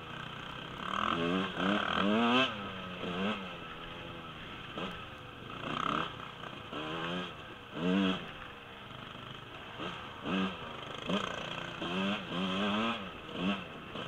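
Husqvarna 125 two-stroke dirt bike engine revving up and falling back again and again in short throttle bursts, about a dozen times, with scattered knocks and rattles from the bike over rough ground.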